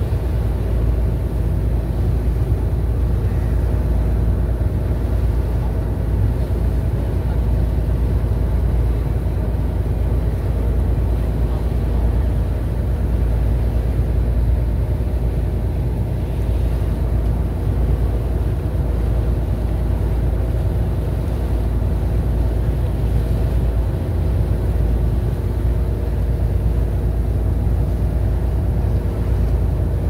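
Ferry running at cruising speed: a steady low engine drone with a faint even hum above it, over the rush of water along the hull.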